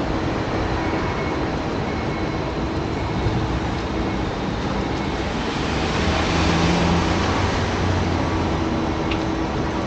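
Steady road traffic noise on a city street. A vehicle passes, louder with a low engine hum, from about six to eight and a half seconds in.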